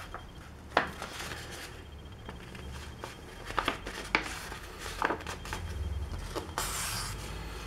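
A sheet of A4 paper handled and folded in half by hand: scattered crackles and taps of the paper, with a longer rustle near the end.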